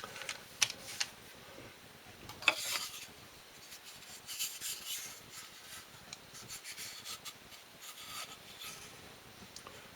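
Wooden slats and a wooden mounting deck being handled, rubbing and scraping against each other. There are a few light knocks in the first three seconds.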